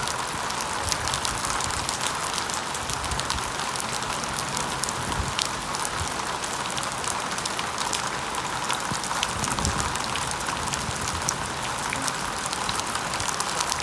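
Very heavy rain falling, a steady dense hiss full of the fine ticks of drops spattering on hard surfaces.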